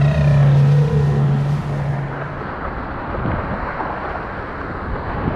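Dinghy outboard motor running steadily under way. About two seconds in, it gives way to a rushing of water and wind noise.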